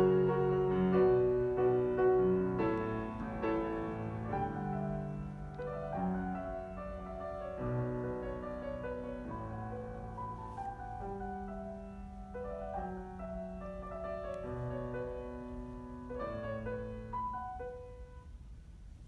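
Piano playing slow, sustained chords and notes, growing gradually softer, with the last notes dying away near the end.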